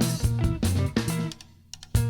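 Background music: an upbeat track with plucked guitar, bass and drums, dropping out for about half a second near the end.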